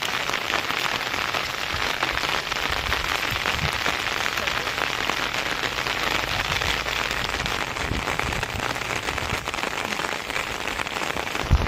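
Heavy rain falling steadily on flood water, a dense even hiss and patter. A brief low thump comes near the end.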